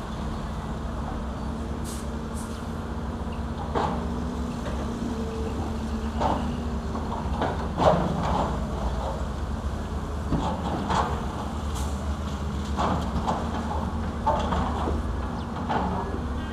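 Heavy diesel engines of excavators and dump trucks running with a steady low rumble, with scattered knocks and clatters of rock.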